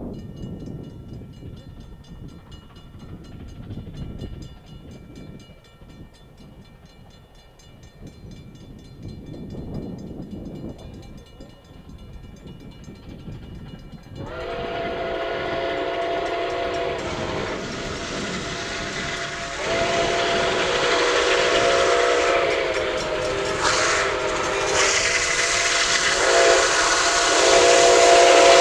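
Nickel Plate Road 765, a 2-8-4 Berkshire steam locomotive, approaching with its chime whistle blowing over the hiss of steam. After a quieter first half, the whistle sounds a chord of several tones in the grade-crossing pattern, long, long, short, long, and grows louder as the engine nears.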